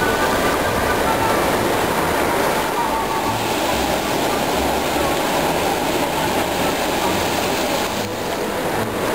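Steady rush of small surf waves breaking and washing on a sandy beach, with wind rumble, and faint voices in the background.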